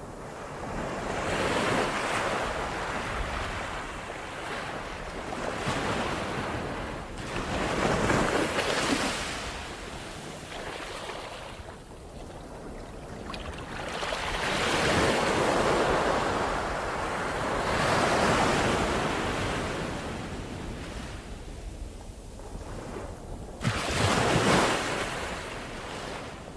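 Ocean surf: waves breaking and washing in, the noise swelling and falling back every few seconds, with a sharper, louder break near the end. Wind gusts on the microphone run underneath.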